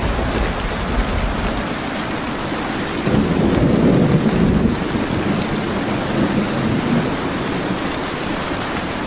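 Steady heavy rain with rolling thunder: a deep rumble in the first second or so, then another swell of thunder about three to five seconds in.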